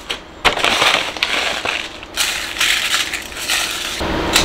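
Coarse salt being poured and spread by hand over aluminium foil in a pot, a gritty crunching rustle in a few bursts, laying a salt bed for salt-roasting king prawns. A single sharp click near the end.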